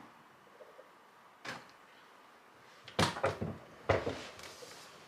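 A few short hard knocks and clunks: a cordless wet-dry vacuum being handled and set into its charging base. One knock about a second and a half in, then two quick clusters of clunks a little past halfway.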